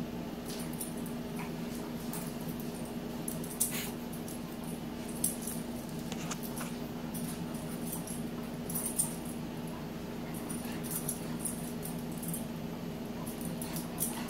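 A German Shepherd and a kitten play-fighting on a hardwood floor: scattered short clicks and taps of claws and paws on the boards and the pillow, over a steady low hum.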